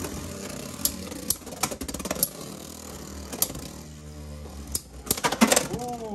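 Two Beyblade X spinning tops, RhinoHorn 3-80 Spike and Leon Claw, whirring in a plastic stadium. Sharp clacks sound each time they collide, bunched together near the end.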